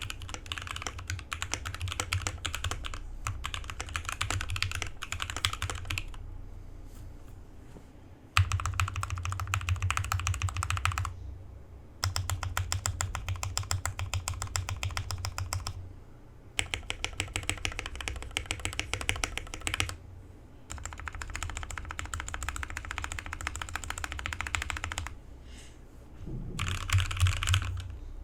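Fast typing on a Drevo Gramr 84 mechanical keyboard fitted with lubed and filmed Gateron Yellow linear switches and foam-modded. It comes in runs of several seconds broken by short pauses.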